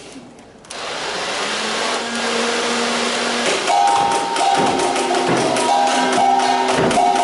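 Background music with drums and a melody starts about a second in, over a steady motorised whirring from the Nerf Rival Nemesis blaster's flywheel motors as it fires.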